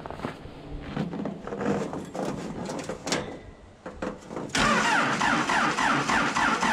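Non-turbocharged four-cylinder Cummins 4B diesel being cold-started: the starter cranks while the engine fires unevenly, struggling to catch in the cold. About four and a half seconds in, loud music suddenly cuts in.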